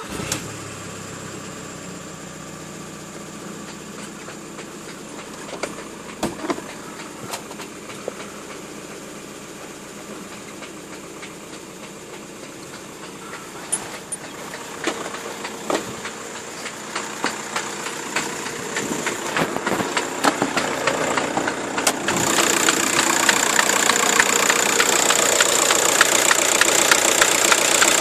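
Volkswagen Golf Mk4 1.9 TDI PD diesel engine firing up and idling, with scattered sharp cracks and knocks from the 02M gearbox and clutch area. The noise persists even after a broken 1st/2nd selector fork was replaced, and its cause is still unknown. About two-thirds of the way through, the sound turns louder and clearer as the engine is heard from the engine bay rather than the cabin.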